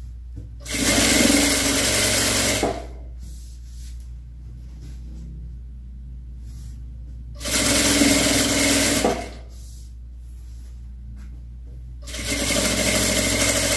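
Electric sewing machine stitching a seam through layers of cotton fabric in three runs of about two seconds each: about a second in, midway, and near the end, with short pauses between them.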